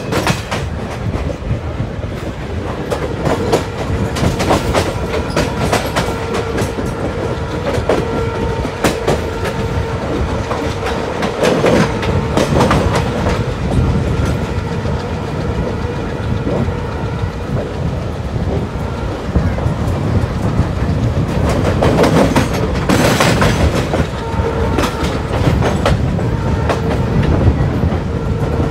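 Passenger train running at speed, its coach wheels clicking over rail joints and points with a steady rumble and hum beneath, heard from an open coach doorway. The clicks come thicker and louder twice, about a third of the way in and again past two-thirds.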